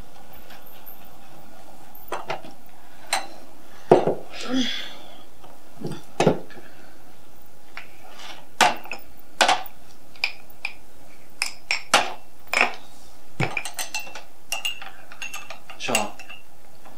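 Crockery and cutlery being set down on a table: cups, plates, a glass jar and a knife, in a scatter of short, sharp clinks and knocks, with a brief scrape about four and a half seconds in.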